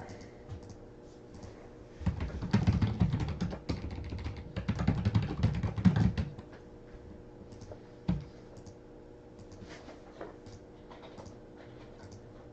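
Fast typing on a computer keyboard in two loud runs of dense clicks, the first starting about two seconds in and the second around four and a half seconds. A single knock follows about eight seconds in, with light scattered clicks around it.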